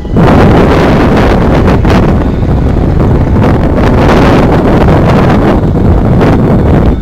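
Strong Vinessa wind buffeting the camera microphone: loud, steady, low wind noise that surges slightly.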